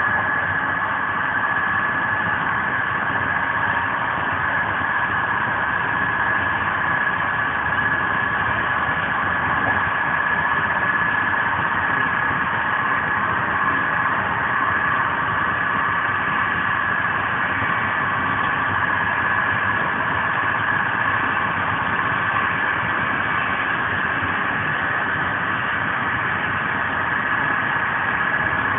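Steady rolling noise inside a Corail passenger coach of an Intercidades train running fast on the rails: an even rumble with a steady high-pitched whine.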